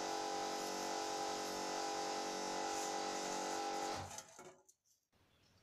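Steady electrical hum made of several fixed tones, which cuts off about four seconds in and leaves near silence.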